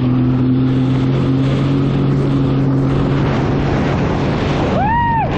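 Sea-Doo jet ski engine running at speed over the water, with wind on the microphone and the rush of spray; its steady hum fades into the wind and water noise about three seconds in. Near the end comes a brief high tone that rises and falls.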